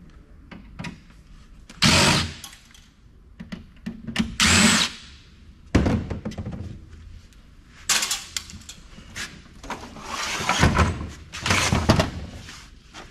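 Cordless drill-driver backing screws out of an old PC case in several short bursts, with knocks and clunks of the metal case being handled between them.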